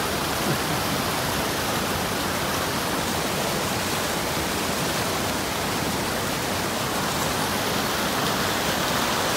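Whitewater rapids of a fast glacial mountain creek rushing steadily over rocks, an even, unbroken rush of water.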